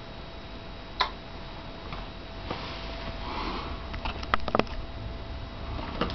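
Relay in a web-controlled power strip clicking once about a second in as a socket switches off, then a sniff and a quick run of small clicks and knocks a few seconds later, over a faint steady high whine.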